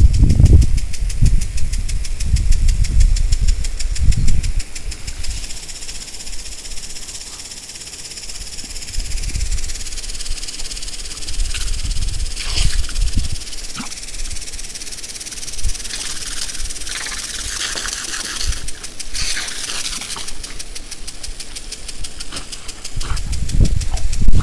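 Lawn sprinkler spraying water with a steady high hiss, with brief spatters now and then. A loud low rumble covers the first few seconds and returns near the end.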